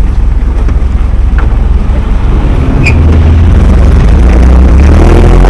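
GAZ-67's four-cylinder flathead engine running under way, heard from inside the open jeep. It gets louder and heavier about three seconds in as the jeep accelerates.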